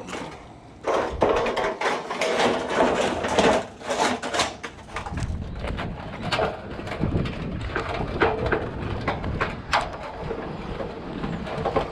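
Scrap metal being handled and loaded, with irregular clanks, knocks and scraping.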